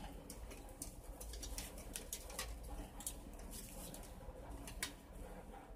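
Light, irregular clicks and taps as a small metal kerosene lantern and its glass globe are handled and fitted together, over a steady low hum.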